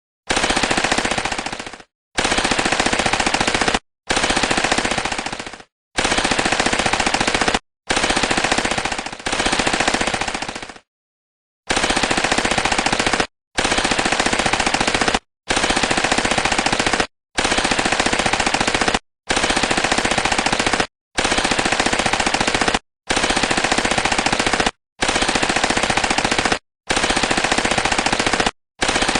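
Automatic gunfire from a machine gun: about fifteen rapid-fire bursts, each under two seconds long, with brief pauses between them and a longer pause about eleven seconds in.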